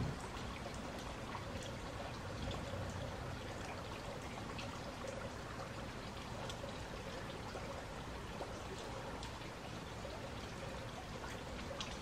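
Steady rain with water running and trickling, and scattered light taps of drops.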